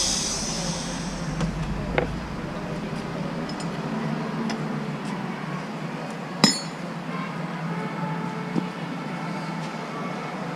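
Mini excavator engine running steadily, with a few sharp metallic clinks and knocks; the loudest clank comes about six and a half seconds in.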